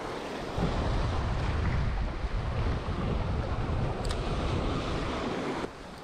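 Small waves washing and breaking over the rocks of a jetty, with wind buffeting the microphone. The rush is steady, then drops off abruptly shortly before the end.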